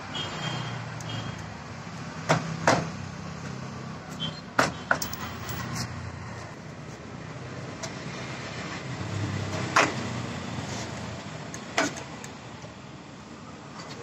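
Plastic trim clips of a Hyundai Santro's front door panel snapping loose as the panel is pried off the door: several sharp snaps, two close pairs early on and two single ones later, over a steady low hum of traffic.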